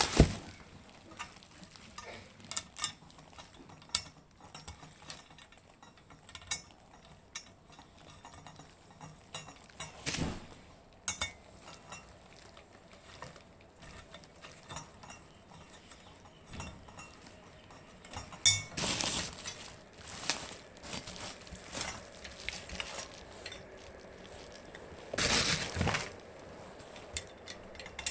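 Metal parts and hand tools clicking and clinking during springer fork assembly work, in scattered irregular knocks. Two longer, louder stretches of noise, each a second or two, come about two-thirds of the way in and near the end.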